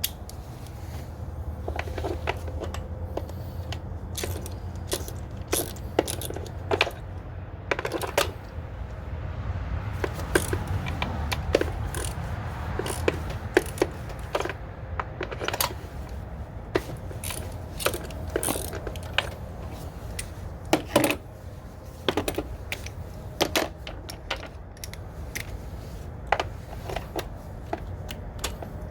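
Irregular metallic clicks, clinks and knocks of hand tools and parts being handled while working on the engine's ignition coils and spark plugs, over a steady low hum.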